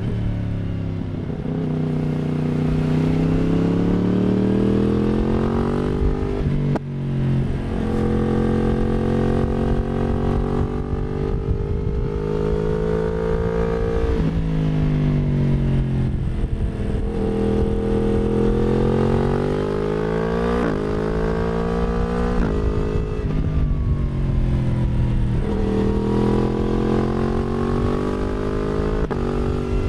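Yamaha MT-10's crossplane inline-four running through an Akrapovic slip-on exhaust with a decat midpipe, heard from just behind the rider near the tail. The engine note climbs under acceleration and drops back sharply at each gear change, several times over, the bike riding continuously at road speed.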